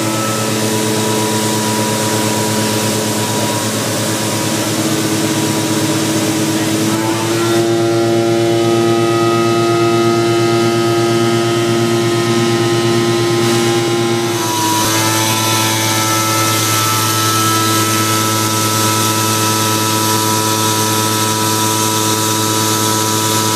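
Vacuum pump on a 2012 Dragon vacuum tank trailer running in vacuum mode, pulling suction through an open discharge valve. It makes a loud, steady drone that shifts pitch about seven seconds in and again about fifteen seconds in.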